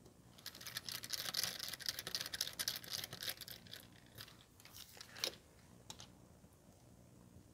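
Close-up handling sounds from work inside an opened laptop: a dense run of fine, scratchy clicking and crackling for about three seconds, as a small Phillips screwdriver and fingers work at the battery's fittings, then a few separate clicks.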